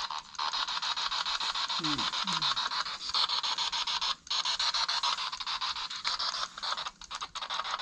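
Spirit box radio sweeping rapidly through stations: a steady hiss of static chopped into fast, even clicks. About two seconds in come two short falling tones, with brief dropouts of the static around four and seven seconds in.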